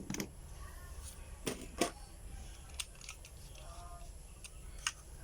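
A handful of sharp clicks and taps, irregularly spaced, from handling the plastic outlet and small tools while the outlet is being wired.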